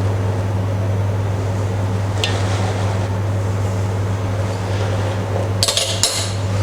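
Steady low electrical hum, with a faint click about two seconds in and a couple of brief sharp clinks near the end.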